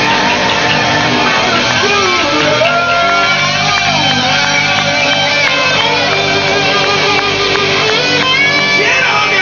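Rock band playing live, with an electric guitar lead sliding and bending notes up and down over the sustained backing.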